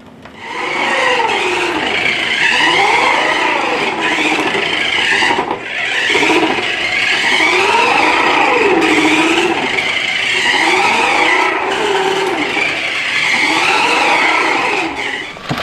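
Electronic engine-revving sound effect from a children's toy car, its pitch rising and falling over and over, about once every two seconds.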